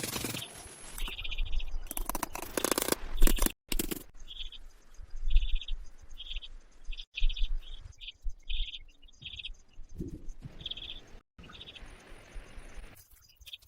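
Short high chirps repeating irregularly, about a dozen, from a small animal such as a bird, frog or insect, over louder rustling and scraping handling noises. The sound cuts out abruptly several times.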